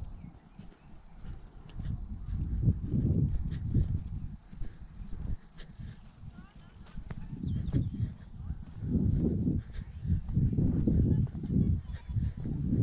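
Crickets trilling steadily in the grass, one continuous high pulsing buzz. Gusts of wind buffet the microphone with a low rumble, loudest a few seconds in and again from about eight seconds on.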